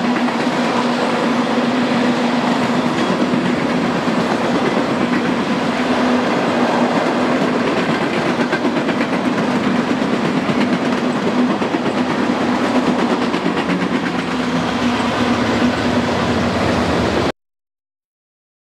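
Freight train's tank cars rolling past, a steady rumble and rattle of steel wheels on the rails with a low hum running under it. It cuts off suddenly near the end.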